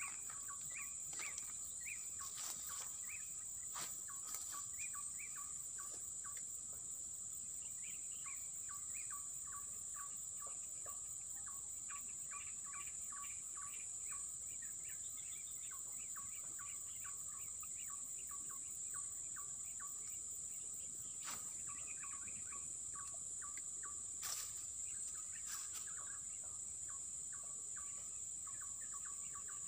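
Rural ambience: a steady high-pitched drone of insects with many short, repeated bird chirps over it, and a few sharp clicks here and there.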